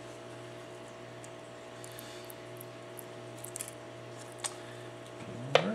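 Light clicks and taps of small tools working on the opened phone's internal parts, a few in the second half and a sharper one near the end, over a steady low hum.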